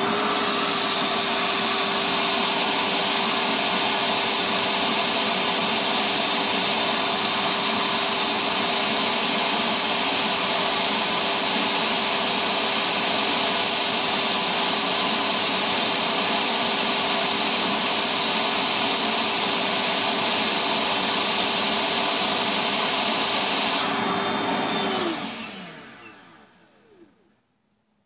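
Milwaukee M12 FUEL 1.6-gallon wet-dry vac's brushless motor spinning up to its higher speed, then running steadily with a constant hum and a rush of air through the hose, its filter removed. About 24 seconds in it is switched off and winds down to silence over a few seconds.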